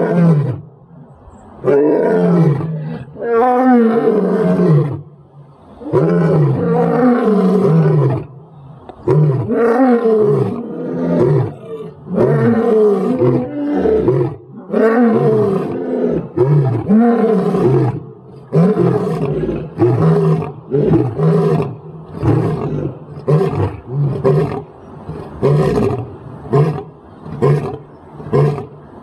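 Lion roaring in a full bout: several long, loud roars falling in pitch. Near the end they give way to a run of shorter grunts about one a second.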